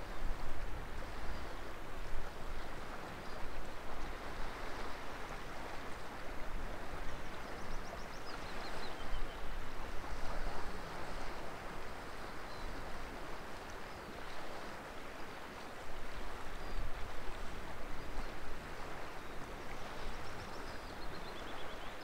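Steady rush of moving water, with a few faint high chirps about eight seconds in and again near the end.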